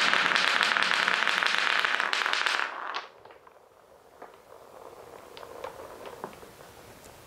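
Many wooden balls rolling and clacking against each other and the wooden track of a block marble run: a loud, dense rattle that stops suddenly about three seconds in, followed by faint scattered clicks.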